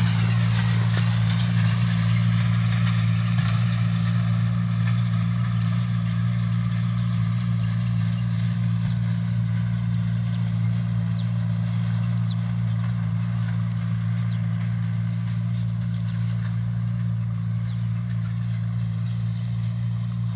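Farm tractor engine running steadily under load while towing a seed drill across a tilled field, a constant low drone that fades slightly as it moves away.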